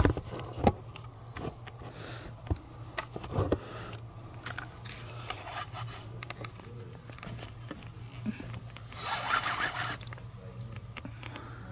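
Night insects trilling steadily on one high note, with a few knocks and scrapes in the first few seconds as the camera is set down and settled. A rustling scrape near the end.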